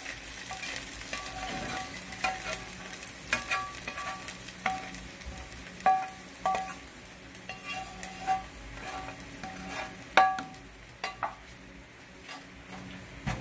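A metal spoon scraping and knocking against a frying pan, many of the irregular knocks ringing briefly, as fried onions and their hot oil are scraped into a pot of thick porridge, over a light sizzle. It is a baghar: hot fried-onion oil being tipped into the dish.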